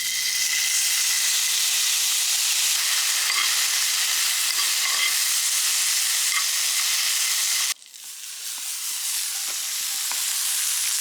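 Boiled edamame sizzling as they grill, with a splash of mentsuyu just poured over them: a steady, loud hiss that cuts off abruptly about eight seconds in, then builds back up.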